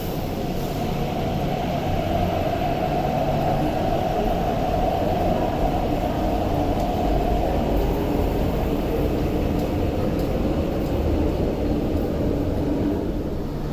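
MTR Tuen Ma Line C-train electric multiple unit pulling out of the platform and running away: steady running noise with a steady whine through roughly the first half, settling into lower running noise as the train moves off.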